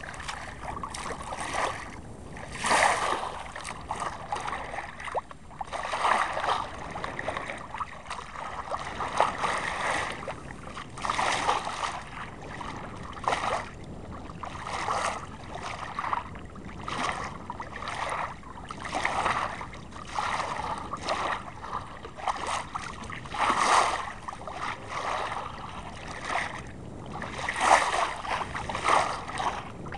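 Water rushing and splashing along the hull of a 1964 Mercator Offshore 30 sailboat under sail through choppy water, in irregular surges every second or two.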